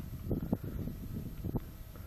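Wind rumbling on the microphone, with a couple of faint knocks.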